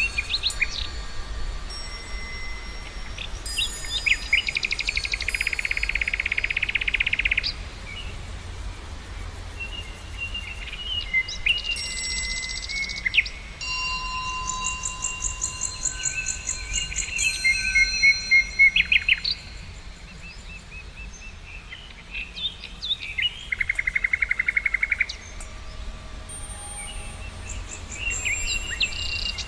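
Several songbirds singing and calling at once, with whistled notes and rapid trills, some high and thin and some lower, coming and going throughout. A steady low rumble runs underneath.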